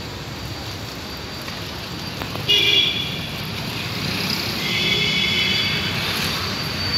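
A vehicle horn honks twice, a short blast about two and a half seconds in and a longer one a couple of seconds later, over steady street traffic noise.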